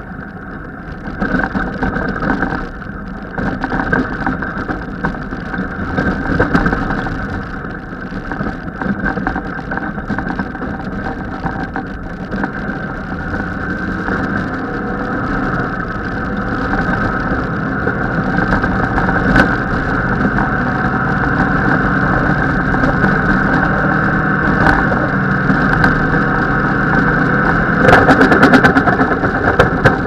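Engine of a small off-road vehicle running steadily as it drives over a rough dirt trail, with rattling over the bumps. A louder burst of clatter comes about two seconds before the end.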